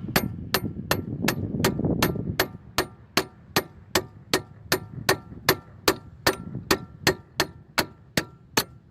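Hammer tapping a new wheel stud into a 2000 Cadillac Seville's wheel hub. The metal-on-metal strikes come steadily, about three a second, each with a short ring.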